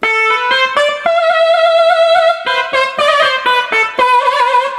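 Yamaha PSR-SX700 arranger keyboard playing a melody on its nadaswaram voice from an Indian expansion pack: a single lead line of held and quick notes, several of them wavering and bending in pitch.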